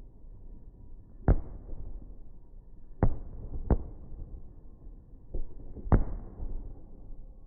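Firework bangs: four loud sharp cracks and one fainter one, one to two seconds apart, over a low rumble.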